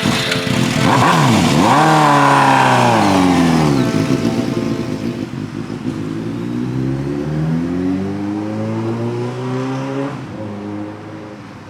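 2005 Suzuki GSX-R750's inline-four engine revving as the motorcycle accelerates. The pitch swoops up and drops sharply in the first few seconds, then climbs steadily again through a gear before fading near the end.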